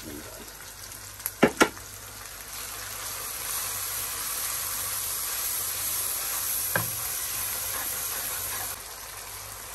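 Onion-and-tomato masala with freshly added ground spices sizzling in hot oil in a nonstick pan while it is stirred with a wooden spoon. Two sharp knocks come about a second and a half in. The sizzling grows louder from about three seconds in and drops back near the end.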